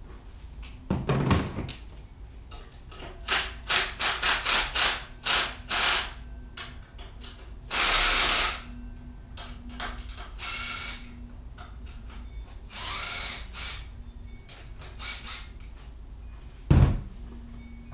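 Handheld power drill run in short trigger bursts: one about a second in, a quick string of bursts between three and six seconds in, and a longer run near eight seconds, with softer whining runs after. A single low thump near the end.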